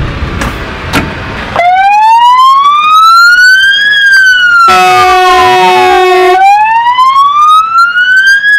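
Fire engine's siren wailing, sweeping slowly up and down, starting about a second and a half in after the truck's engine is heard running. Around the middle a steady horn blast sounds over the siren for about a second and a half.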